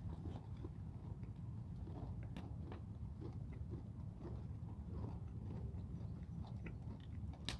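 Someone chewing crispy rice milk chocolate: soft, irregular crunches and clicks over a low steady hum.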